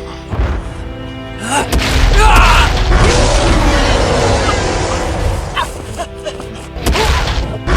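Dramatic background music with held notes, overlaid about a second and a half in by a loud booming, rushing sound effect that lasts several seconds, with another sharp hit near the end.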